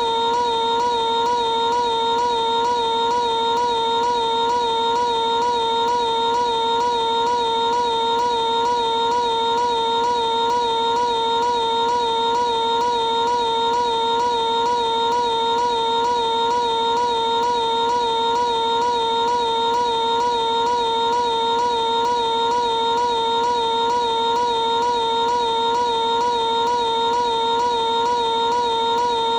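Piglet's cartoon voice screaming for Pooh, stretched into one continuous high-pitched held note with a fast, even wobble.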